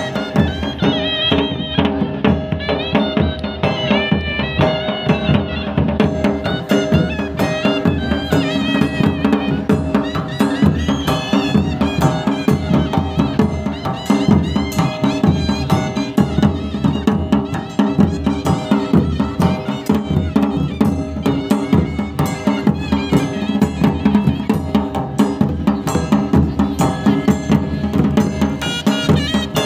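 Live Himachali folk music for a nati dance: drums beating a steady rhythm under a wavering melody from traditional wind instruments.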